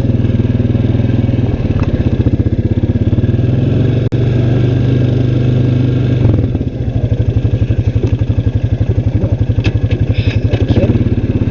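Small vehicle engine running as it is driven along, a steady low drone with a quick pulsing beat that grows stronger in the second half.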